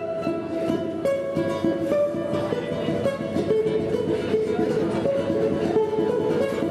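Solo balalaika playing a quick melody of rapidly plucked notes.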